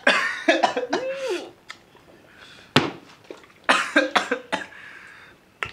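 A person coughing in several short bursts, with a brief strained vocal sound between, in reaction to hot spicy chicken; a single sharp knock lands about three seconds in.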